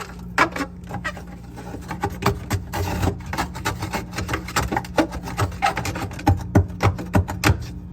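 Solid frost buildup being chipped and scraped out of a Frigidaire refrigerator's freezer with a hand tool: irregular sharp knocks and scrapes over a steady low hum. The ice has built up because the fridge is over-frosting.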